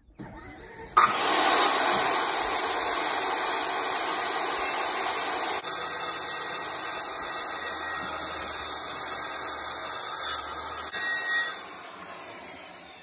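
Corded circular saw starting about a second in, its motor whine rising as the blade spins up, then running steadily as it cuts through a treated lumber post for about ten seconds. Near the end it cuts off and the blade spins down.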